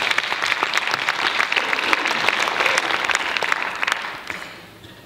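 Audience applauding, a dense patter of many hands clapping that fades away about four seconds in.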